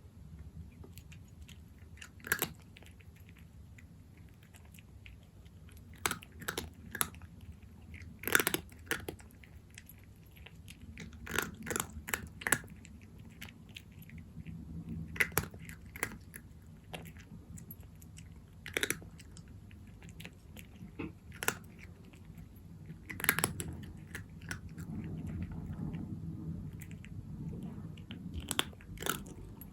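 A cat eating dry kibble, with sharp, irregular crunches that come in short clusters separated by quieter pauses.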